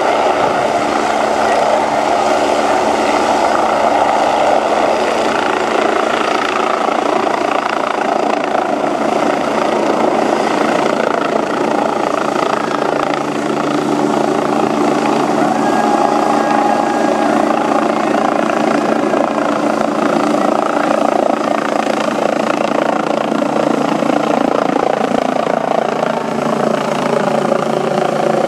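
MBB Bo 105 air-ambulance helicopter taking off and climbing away overhead: its twin turboshaft engines and rotor run at full power, with a steady whine of several held tones over the rotor noise.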